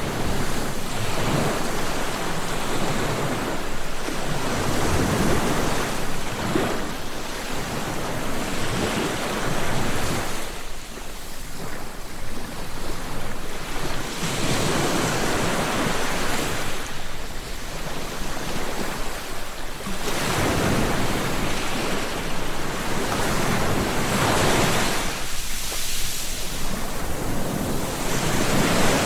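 Sea waves breaking on a shore: a rushing surf that swells and ebbs in repeated surges a few seconds apart.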